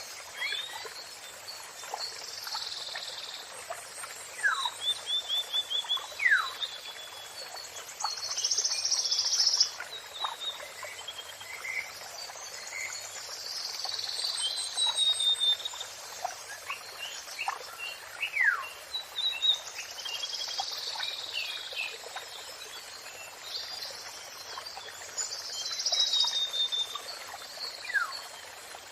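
Songbirds singing in varied whistled phrases and fast trills, one burst after another, over a steady hiss like running water.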